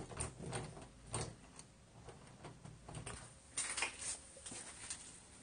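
Round metal doorknob on a wooden door being turned and rattled, then the door opened. Scattered light clicks and knocks, with a cluster about three and a half seconds in.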